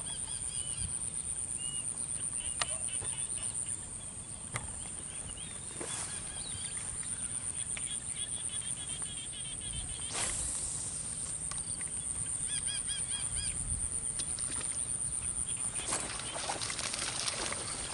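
Rural outdoor ambience: small birds chirping in short repeated phrases over a steady high-pitched insect drone, with low wind rumble on the microphone. A few scattered clicks, and a brief burst of noise about ten seconds in.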